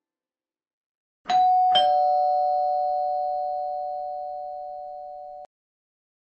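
Two-note ding-dong doorbell chime: a higher note, then a lower one about half a second later, both ringing on and slowly fading before cutting off suddenly about four seconds later.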